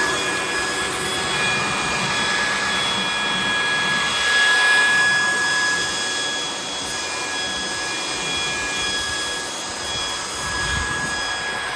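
Electric blower, of the leaf-blower kind, running steadily with a high whine as it blows water off a freshly wet-sanded headlight to dry it before coating.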